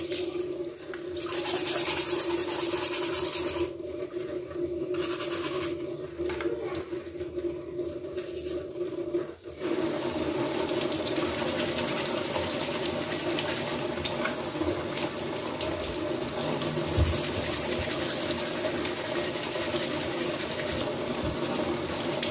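Tap water running and splashing into a basin as a mud crab is scrubbed under the stream; the splash changes a few times as hands and crab move in and out of the flow, then runs steadily.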